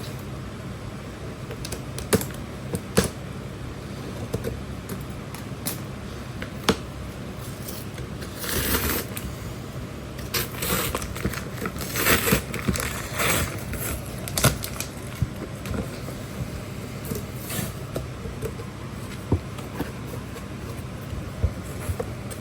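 A large cardboard shipping box being opened by hand: scattered clicks and knocks, with bursts of scraping and tearing of tape and cardboard from about 8 to 15 seconds in, over a steady low hum.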